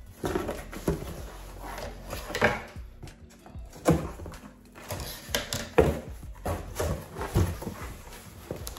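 Cardboard shipping box being opened by hand: the flaps are pulled apart and bent back, giving irregular scrapes, creases and knocks of stiff cardboard, with background music.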